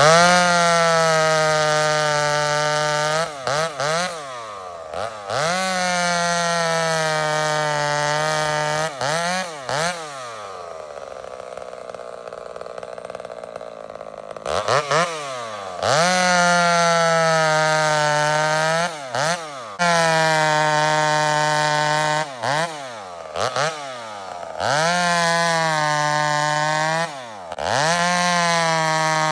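Gas chainsaw bucking a log into rounds. It is revved up to full speed for each cut, holding a high steady note through the wood, then drops back briefly between cuts. About ten seconds in, it sits at idle for about four seconds before the cutting resumes.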